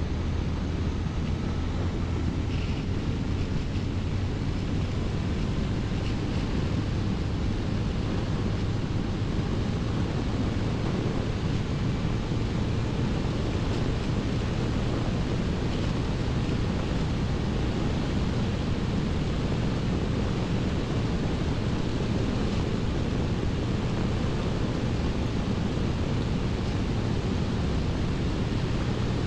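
Steady wind noise on a motorcyclist's microphone while riding at an even speed, with the low, steady hum of a Honda CBR1100XX Blackbird's inline-four engine beneath it.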